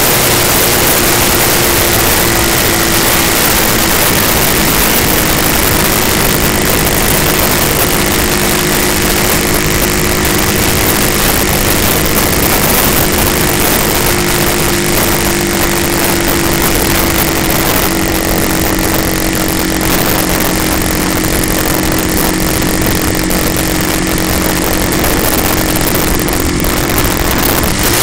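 Motorcycle engine running steadily while riding uphill, its tone rising and falling a little with the throttle, under heavy wind rush on the microphone.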